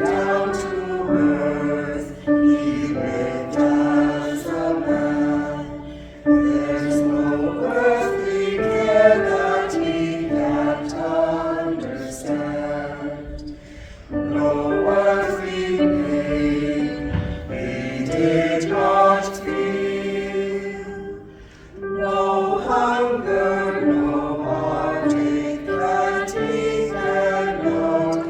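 Church choir singing a slow hymn in sustained phrases, with brief breaths between phrases.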